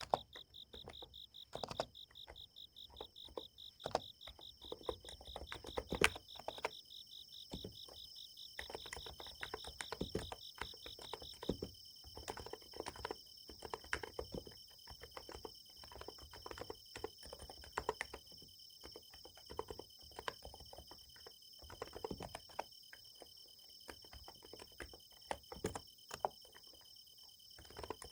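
Irregular keystrokes on a Niz Plum X108 electro-capacitive keyboard, over steady chirping of night insects. A pulsing, lower-pitched insect trill stops about eleven seconds in, while a higher, steady trill carries on.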